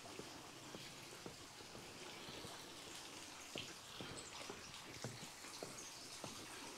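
Faint footsteps going down stone steps, a soft knock roughly every half second, over a light steady hiss.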